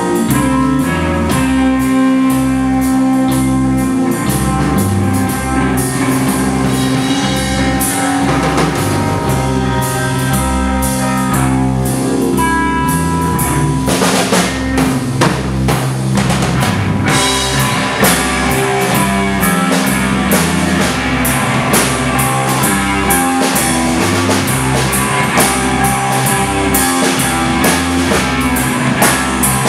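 Loud live rock band: two electric bass guitars, electric guitar, drum kit and keyboard, with the bass notes shifting in a repeating driving pattern under dense drumming. A denser, noisier passage comes about halfway through.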